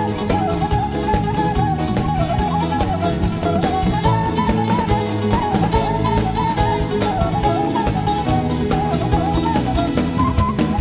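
Live band playing Batak tortor dance music: a steady drum-kit beat under bass and keyboard, a plucked hasapi lute, and a wavering, ornamented lead melody.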